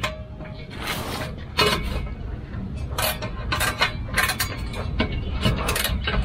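Socket ratchet tightening a steel exhaust clamp nut, a short burst of clicks on each back-swing, about eight strokes at uneven intervals.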